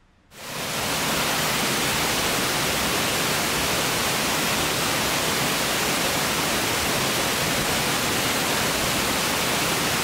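Steady rush of falling water from a waterfall with several falls pouring into a pool, fading in during the first second and then holding even.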